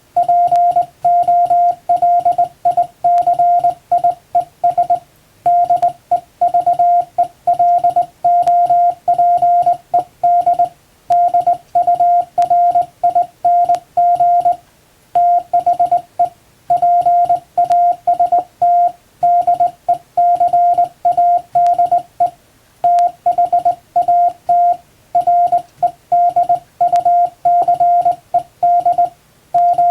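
Morse code tone hand-sent on a straight telegraph key: a steady single-pitched beep keyed on and off in dots and dashes, spelling plain English text, with short pauses between words.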